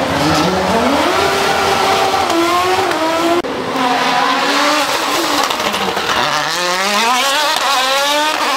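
Nissan 350Z rally car's V6 engine revving hard at full throttle, its note climbing and then holding. About a third of the way in the sound cuts abruptly to a rally car engine whose note drops, then climbs steeply as it accelerates hard.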